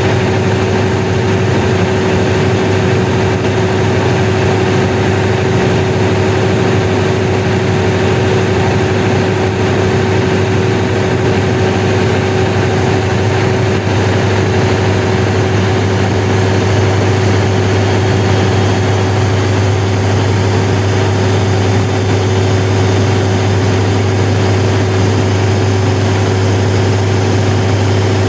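1000 kW diesel generator set running steadily at constant speed: a loud, even engine drone with a deep hum and a steady higher whine on top.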